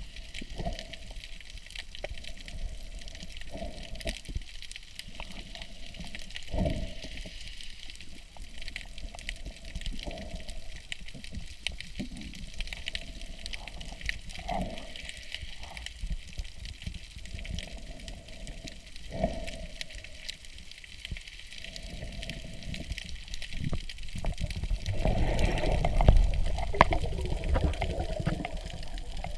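Water sloshing and bubbling against an underwater camera, in surges every few seconds, growing louder and more turbulent near the end as the camera moves down close to the rocks.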